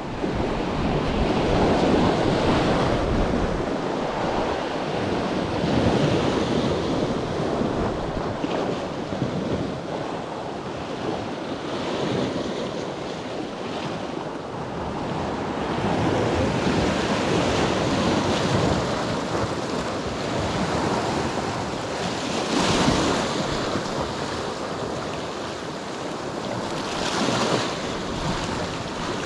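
Sea waves washing over a rocky shoreline, surging in and draining back in swells every few seconds, with wind buffeting the microphone.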